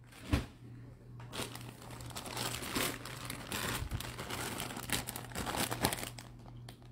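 Clear plastic bags around football jerseys crinkling as they are handled and shuffled, with a soft thump a moment in.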